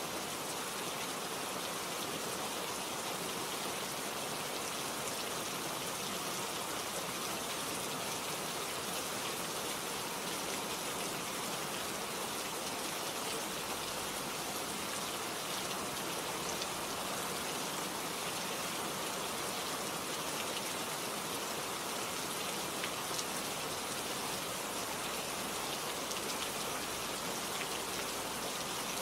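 Steady rainfall: a dense hiss of drops pattering on a surface, even in level throughout.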